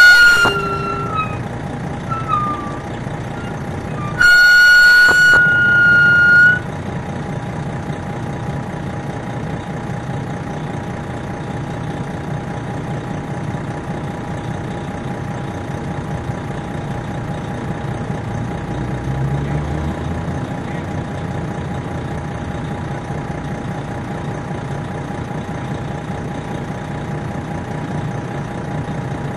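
Loud horn blasts: one ends right at the start, and a second of about two seconds stops sharply. Then comes the steady sound of an MCI D4000 coach's Detroit Diesel Series 60 engine, heard inside the bus. It runs steadily with a constant whine over its low rumble, and the rumble swells briefly about two-thirds of the way through.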